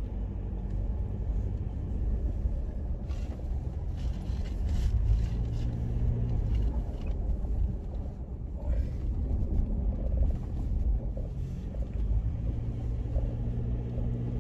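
Ford Endeavour SUV driving along a rough, rutted sandy dirt track, heard from inside the cabin: a steady low rumble of engine and tyres, with scattered knocks and rattles as it bumps over the ruts.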